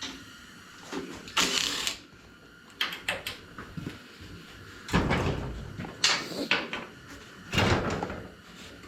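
Hand tools being worked on a small engine's side-cover bolts: several short bursts of clicking, scraping and metal clatter.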